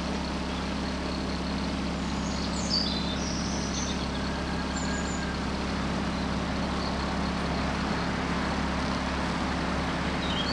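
Outboard motor of a small cabin cruiser running steadily under way, a low even drone. Birds chirp briefly a few times, most around three seconds in.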